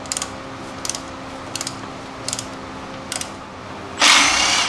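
Hand socket ratchet clicking on a shock absorber's upper nut, five short strokes about 0.7 s apart. About four seconds in, a cordless impact wrench lets off a loud burst on the shock's lower bolt.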